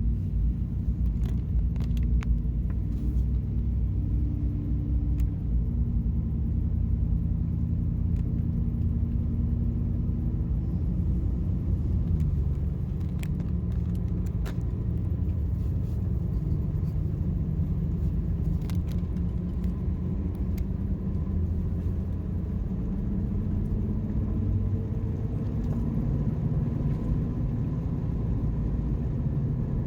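A car driving, with a steady low rumble of road and engine noise and a few faint ticks.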